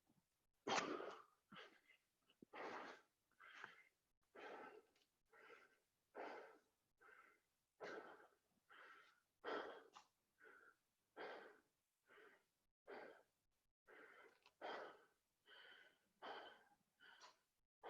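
A person panting hard from the exertion of doing burpees: quick, noisy breaths in and out, about one to two a second.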